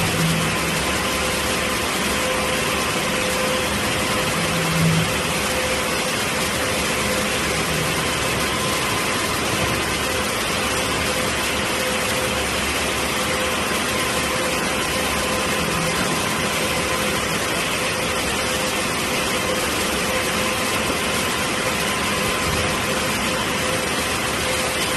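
Conveyor line running: belt and roller conveyors with a wheel sorter give a steady machine noise with a faint hum, and a brief low thud about five seconds in.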